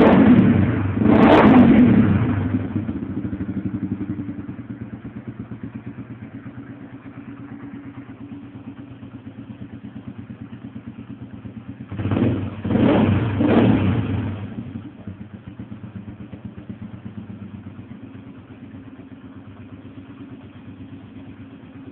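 An engine running at idle with a steady, even pulse, revved up in short blips at the start and again about twelve seconds in, then settling back to idle.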